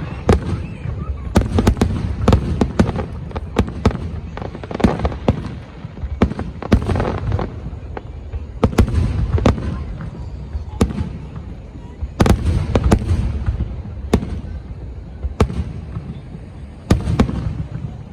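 Aerial fireworks going off in quick succession: many sharp bangs and crackles over a deep, continuous rumble.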